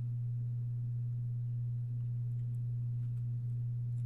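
A steady low hum on one unchanging tone, with a few faint rustles and ticks of a cardboard product box being handled and opened in the second half.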